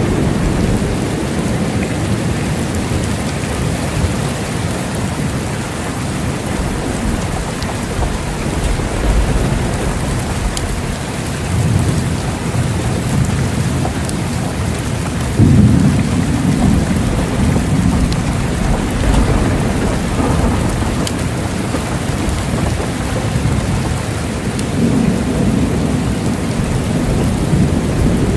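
Steady heavy rain in a thunderstorm, with rolling thunder rumbling low several times: a sudden louder peal about halfway through, and another near the end.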